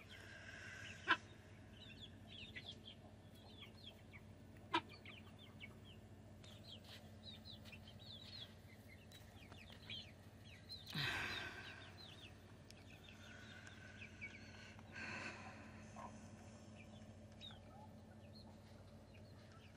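Young Polish, Cochin and Silkie chicks peeping softly, many short high chirps scattered throughout. A couple of sharp clicks sound in the first few seconds, and a brief rustle about halfway through.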